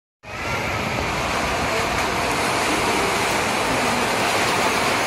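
Very heavy rain pouring down, a steady even rush that comes in suddenly just after the start.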